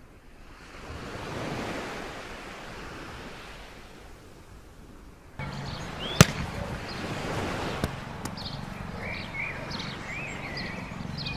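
Outdoor ambience: a swell of rushing noise that rises and dies away, then after an abrupt cut steadier background noise with a low hum, a sharp click a little past halfway, and short high chirps near the end.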